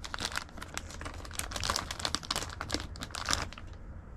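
Labubu blind-box packaging being opened by hand: irregular crinkling and rustling of the wrapper and cardboard box, dying down near the end.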